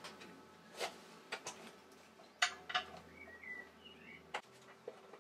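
Scattered small clicks and knocks from handling the air compressor's cover and mounting bracket during reassembly, the loudest about two and a half seconds in.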